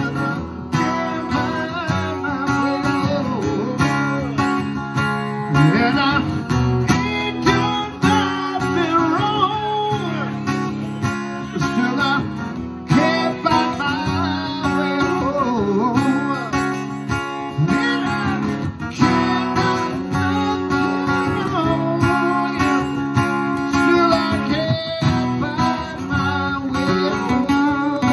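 Acoustic guitar strummed and picked, with a harmonica played into a hand-held microphone over it, its notes bending and wavering.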